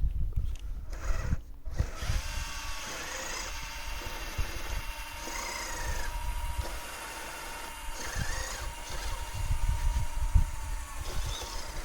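Small electric motor of a radio-controlled model excavator whining steadily as it works, starting about two seconds in, with a few short rises in pitch. Dull low thumps run underneath.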